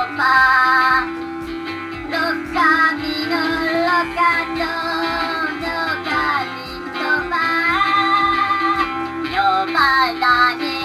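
Minion Stuart interactive guitar toy playing a song through its small built-in speaker: a high-pitched Minion voice singing in Minion gibberish over a guitar backing, triggered by the guitar being plugged into the toy.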